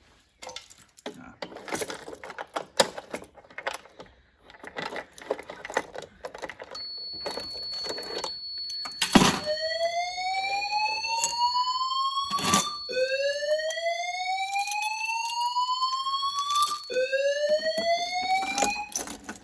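Fire alarm sounders in evacuation mode: a slow rising whoop, about three and a half seconds long, repeated three times, each restart marked by a sharp click, over a steady high-pitched beep. Scattered clicks and knocks come before it, and the tone starts about seven seconds in, ahead of the sounders.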